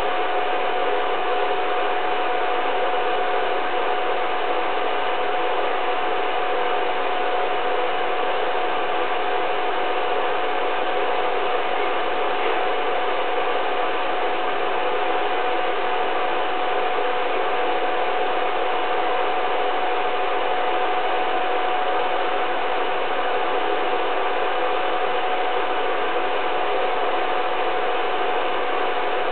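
Film projector running: a steady mechanical whirr and clatter with a constant whine.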